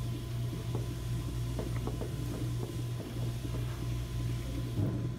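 Electric pottery wheel spinning with a steady low hum, with small wet squelches and ticks of clay as hands pull up the wall of a thrown cylinder.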